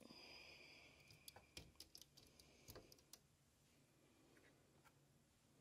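Near silence: faint room tone with a few scattered faint clicks in the first three seconds.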